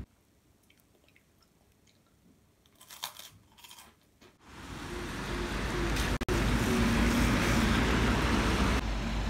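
A few quiet crinkles of plastic snack packaging, then from about four and a half seconds in a loud, steady wash of heavy rain and wind.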